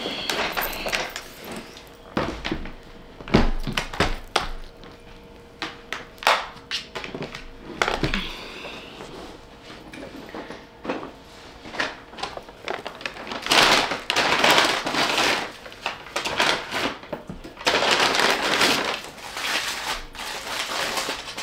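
A bag or wrapper being handled, rustling and crinkling in two longer spells near the middle and end, amid scattered knocks and clicks.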